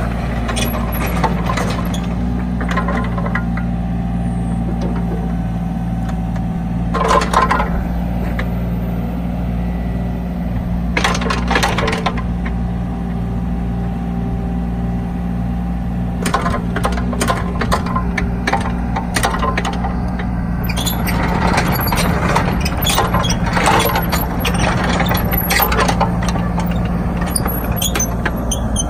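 Kubota mini excavator's diesel engine running steadily while the machine moves about, with bursts of metallic clanking and rattling several seconds in and again around the middle, and a longer stretch of clatter through most of the last third.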